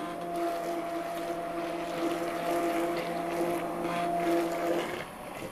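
Handheld immersion blender running at high speed in a pot of tomato soup: a steady motor hum over a wet churning noise, cutting out near the end.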